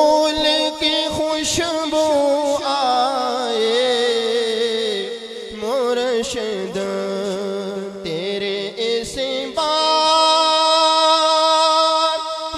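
Male voice reciting a naat through a microphone, drawing out long, wavering melismatic notes. About ten seconds in, he settles into one long held note.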